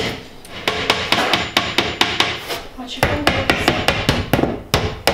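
Hammer quickly tapping small nails through a thin fibreboard cabinet back panel, about four or five light strikes a second in two runs, with a short break between them.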